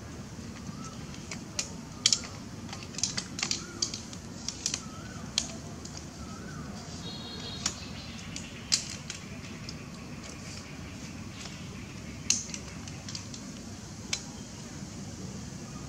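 Long-tailed macaque chewing soft, juicy fruit: irregular wet smacking clicks of its mouth, bunched together in the first few seconds and scattered after, over a steady low background hum.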